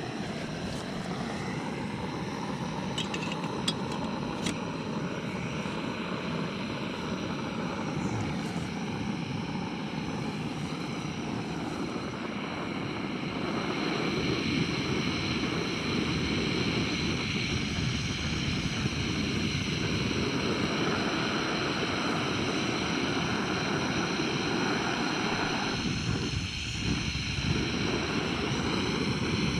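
Jobsworth X3 gas stove burner running with a steady roaring hiss under a pot of water; it gets louder about fourteen seconds in as the gas valve is turned up. A few light clicks sound about three to four seconds in.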